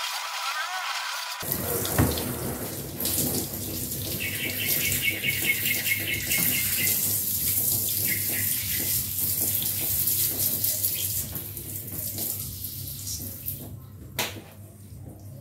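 Water spraying from a garden hose nozzle onto a car's bonnet, rinsing off the cleaning solution; the spray stops about 13 seconds in, followed by a single sharp click.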